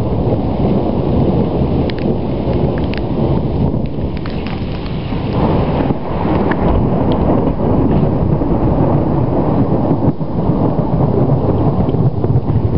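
Continuous low rumbling of thunder from an electrical storm, running on steadily without a break. A few faint, sharp clicks sound over it in the first half.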